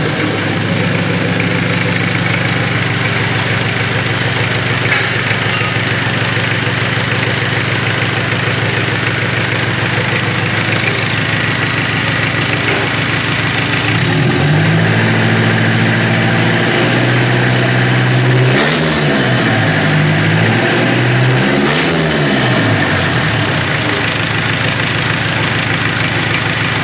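Freshly overhauled Mitsubishi 4M40 2.8-litre four-cylinder diesel engine idling steadily. About halfway through the revs rise and hold for a few seconds, then it is blipped twice, a few seconds apart, and drops back to idle.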